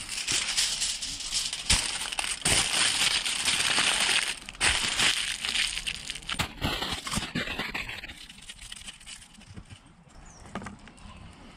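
Aluminium foil crinkling and crumpling as it is wrapped and pressed by hand around a round bundle, a dense crackle for about eight seconds that then dies down to a few faint rustles and clicks.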